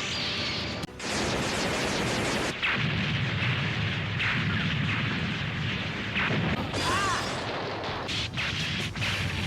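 A string of anime space-battle explosion sound effects: rumbling blasts cut one after another, with brief whistling glides about seven seconds in.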